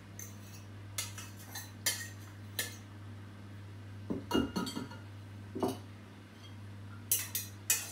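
A metal spoon scrapes and knocks against a small stainless-steel pan and a glass mixing bowl as ingredients are tipped in and the pan is set down. The clinks and knocks are scattered, some with a brief ring, and the loudest comes about four seconds in, over a steady low hum.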